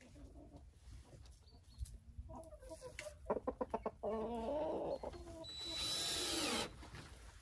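Hens clucking and calling in a coop, with a quick run of short clucks a little after three seconds in and a louder, harsher squawk lasting about a second near the end.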